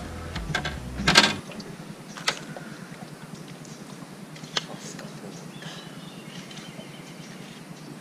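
Background music that cuts off about a second and a half in, with a handful of sharp knocks and clatters from a landing net and gear being handled on a bass boat's deck, the loudest about a second in, over steady open-air hiss.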